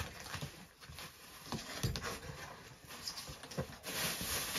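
Cardboard boxes and packing being handled: irregular light knocks and taps, then a steadier rustling scrape near the end.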